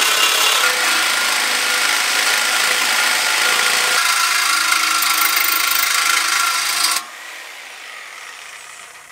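A DeWalt reciprocating saw cuts through an aluminum bicycle frame tube, a loud, steady buzz of the blade in the metal. It stops suddenly about seven seconds in, and a much fainter sound trails off after it.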